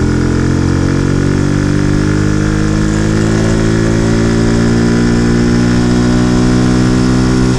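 Stock-exhaust 100 cc motorcycle engine accelerating in third gear, its revs and pitch climbing steadily the whole time. It pulls toward, but does not reach, its 8000 rpm rev cut.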